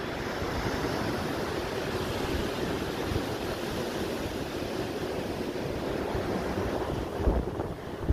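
Steady ocean surf with wind buffeting the microphone, and a brief low thump just after seven seconds in.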